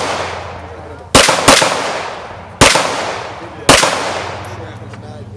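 Four handgun shots: a quick pair about a second in, then two single shots about a second apart, each trailing off in a long echo.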